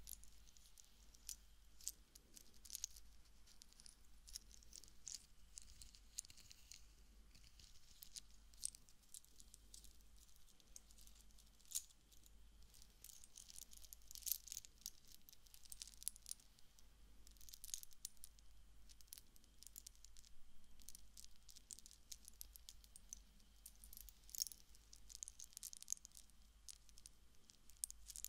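Small hard charms clinking and jangling close to a binaural microphone, in irregular light clicks, some sharper than others.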